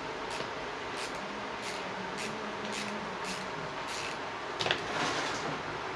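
Ratchet wrench clicking in short bursts, about twice a second, as the bolts holding the pressure washer's pump head to the motor are tightened, with a louder clatter a little after four and a half seconds.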